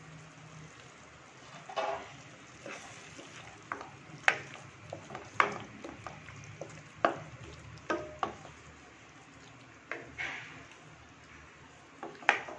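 Wooden spatula stirring cooked moong dal into ridge gourd curry in a steel kadai: about a dozen irregular knocks and scrapes against the pan, over a faint steady sizzle.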